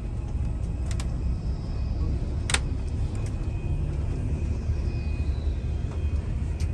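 Airport apron shuttle bus driving, a steady low rumble heard from inside the bus, with a couple of sharp clicks or rattles in the first few seconds.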